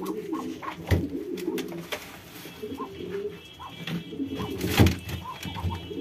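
Domestic pigeons cooing, with two sharp knocks, the louder one about five seconds in.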